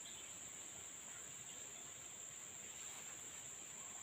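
A faint, steady high-pitched drone of insects trilling, unbroken throughout.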